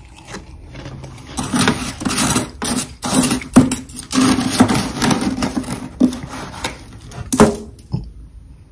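Metal spoon scraping and scooping into packed, powdery freezer frost on the freezer floor: a run of rough, irregular scrapes starting about a second in and stopping shortly before the end.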